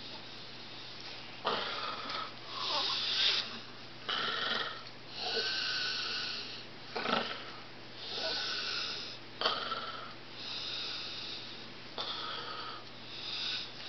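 A person's breathy, snore-like vocal sounds, repeated about every second or so, with a few small clicks between them.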